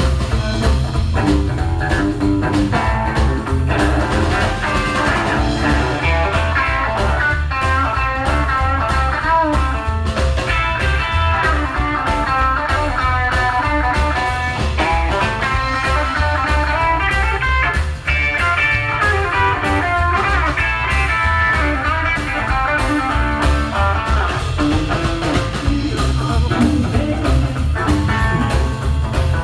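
Rock band playing an instrumental stretch: a busy guitar line over a steady bass-and-drum beat.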